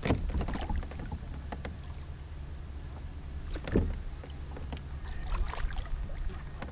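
Handling knocks and water sounds on a plastic pedal fishing kayak while a hooked pickerel is fought on a spinning rod, over a steady low rumble. A sharp knock comes right at the start and another a little under four seconds in, with a flurry of small clicks a little after five seconds.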